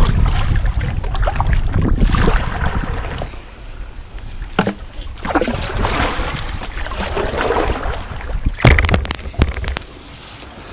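Kayak paddle strokes splashing and dripping in the river water, a stroke every couple of seconds. Wind rumbles on the microphone over the first few seconds, and a few faint high chirps come through.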